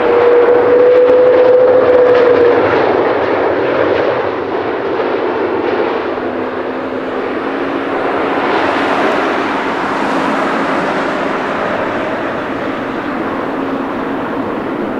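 Jet engines of a heavy widebody airliner running loud: a broad rushing roar with a steady whine over it for the first couple of seconds. After that the roar continues with a low steady hum and eases off slightly.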